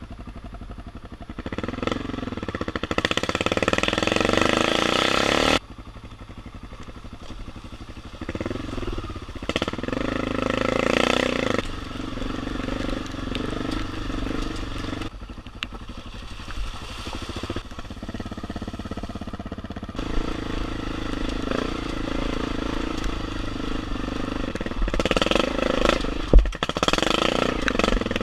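BMW F650GS motorcycle engine pulling on a rough dirt track, its pitch rising and falling as the throttle opens and closes, with sudden drops as the power comes off. A single sharp knock sounds near the end.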